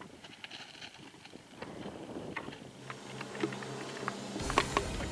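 Footsteps and loose stones clicking and knocking on a scree slope, a scatter of short sharp clicks. Wind starts buffeting the microphone with a low rumble about four and a half seconds in.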